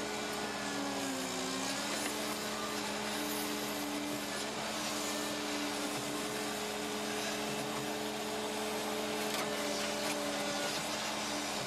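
Cat 309 CR mini excavator's C3.3B diesel engine and hydraulics running steadily as it digs, with a steady whine. The pitch dips and recovers once in the first couple of seconds, as under load.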